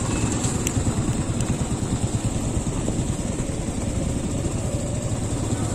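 Motorcycle running at low speed, heard from the rider's seat: a steady low rumble.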